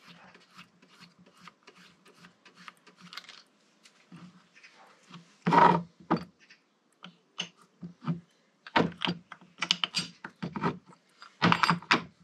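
Small metal parts and hand tools clicking and clattering on a workbench during a brake caliper rebuild: scattered light clicks, a louder clatter about five and a half seconds in, and more bunched clatters near the end.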